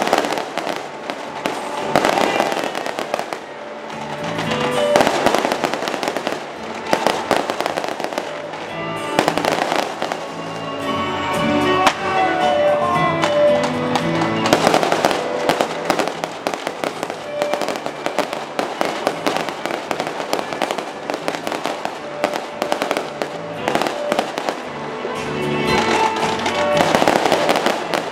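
Aerial fireworks display: shells bursting in quick succession, many sharp bangs throughout, with music playing underneath.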